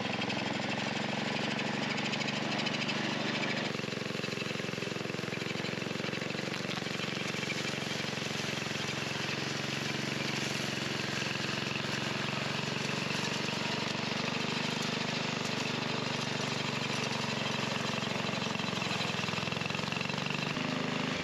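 Small petrol engine of a walk-behind engine weed cutter running steadily under load, its cutter chopping through tall grass and weeds as it is pushed along. The sound shifts slightly about four seconds in.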